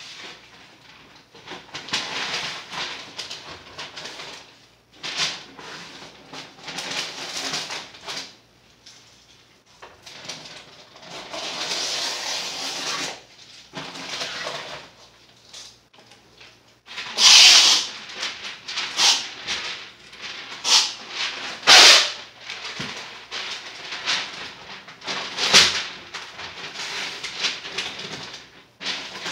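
Masking tape being pulled off the roll, torn and pressed onto the cabinet, with paper rustling: irregular tearing and crinkling noises, the loudest a few sharp rips in the second half.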